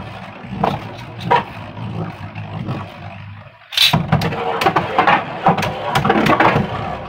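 A Beyblade top whirring as it spins on a plastic stadium floor, then a sharp crack about four seconds in as a second top is launched into the stadium, followed by rapid clacks and scraping as the two tops collide and spin.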